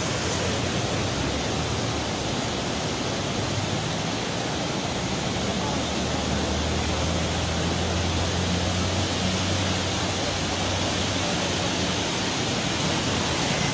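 A swollen, muddy river in flood rushing past: a loud, steady, unbroken rush of water.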